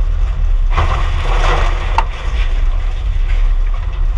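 Steady low rumble of a vehicle in motion. About a second in comes a brief harsh rush of noise, followed by a sharp click.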